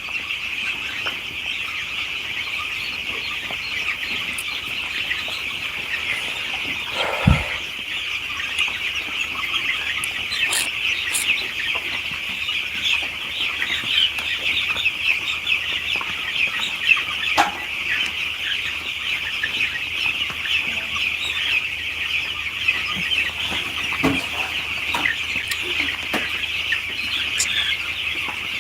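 A flock of poultry chicks peeping continuously, with a single low thump about seven seconds in.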